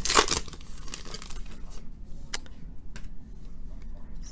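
Trading cards and their foil pack wrapper handled: a short burst of crinkling and rustling at the start, then quieter sliding and light clicks as the cards are flipped through one by one.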